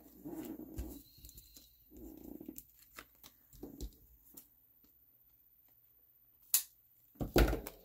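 Cardstock rustling as a woven paper basket panel is picked up and handled, then scissors cutting through the cardstock with a sharp snip and a louder cut near the end.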